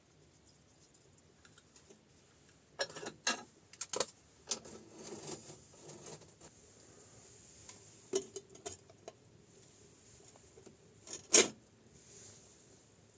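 Scattered knocks and clinks of small objects being handled, with some rustling between them; the loudest knock comes near the end.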